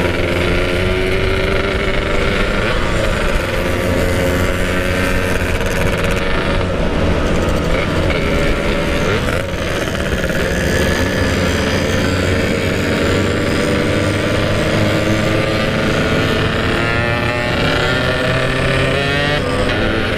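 Motorcycle engines running on the road in a group ride of two-stroke bikes: the engine pitch rises and falls as the riders rev and shift, with more rising and falling revs near the end, over steady road and wind noise.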